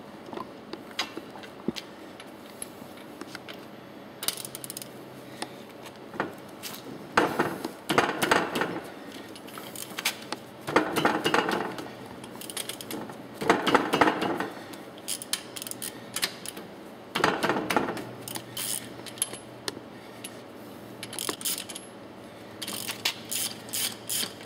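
Socket ratchet loosening the end-cover bolts on a cast-iron piston pump: several bursts of ratchet clicking and metal tool clatter, ending in a run of quicker, even clicks.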